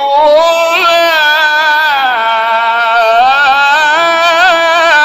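A male reciter's voice in melodic Quran recitation (tajweed), holding one long unbroken note with wavering, ornamented pitch.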